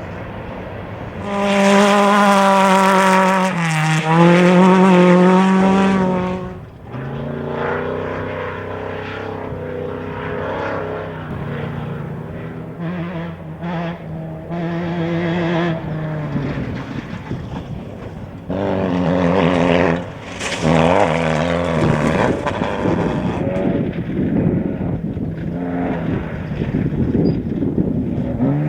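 Off-road race vehicles' engines running hard as they pass one after another. The loudest comes in about a second in, eases off briefly, picks up again and fades after about six seconds; another loud one comes through about two-thirds of the way in.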